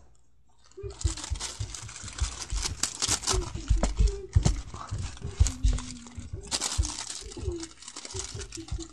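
Close rustling and crinkling with many sharp clicks and low thumps, starting about a second in and stopping just before the end, with a few brief murmured vocal sounds.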